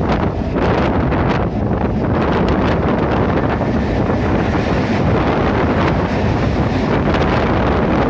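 Heavy wind buffeting the microphone over the running noise of an Indian Railways suburban EMU train moving at speed along the track, a steady dense rush.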